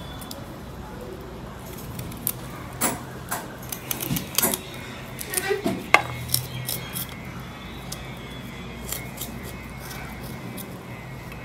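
Kitchen utensils and dishes being handled: scattered clinks and knocks, busiest around the middle, a few of them ringing briefly.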